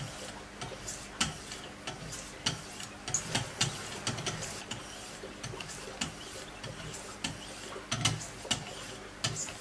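Fine diamond stones of a Wicked Edge guided sharpener stroking along a clamped steel knife blade: a run of light scraping strokes with sharp clicks as the stones meet the edge, irregular, about one to two a second.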